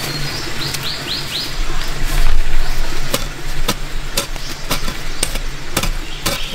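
A few short bird chirps over a steady low hum, then a run of sharp cracks or knocks about half a second apart.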